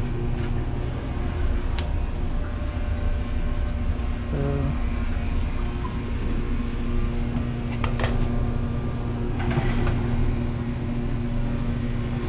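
Wash motor of an ADS water-saver L commercial dishwasher running loudly, a steady hum and rumble from a failed motor bearing, with a few light knocks along the way.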